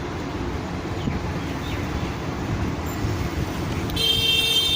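Steady street traffic rumble, with a vehicle horn sounding for about a second near the end.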